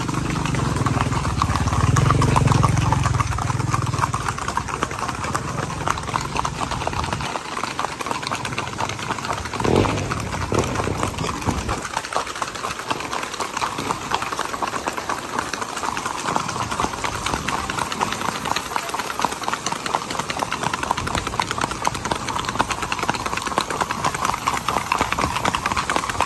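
Horses' hooves clattering on asphalt in a rapid, even rhythm. A low rumble sits under the hoofbeats for the first several seconds, and there is one louder knock about ten seconds in.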